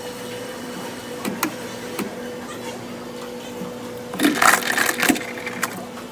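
Restaurant background: a steady electrical hum from kitchen or counter machinery, with a few sharp clicks and a brief louder burst of clatter or voices about four seconds in.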